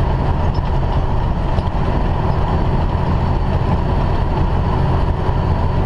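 Steady low drone of a semi-truck's engine and road noise heard inside the cab while it drives on the highway.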